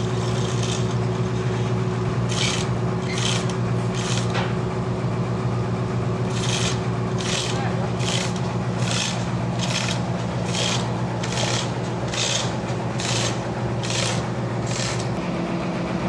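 A sawmill's machinery runs with a steady low hum. Over it comes a series of rhythmic rasping, clattering strokes: three at first, then about ten more at roughly one every 0.8 s. These are the hand chain of a manual chain hoist being hauled to shift a big log on the carriage.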